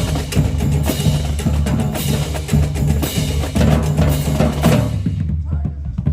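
Marching drumline playing a fast, dense cadence: crisp snare and tenor strokes over pitched bass drums. About five seconds in the bright top of the sound drops away, leaving mostly the bass drums and lower drums.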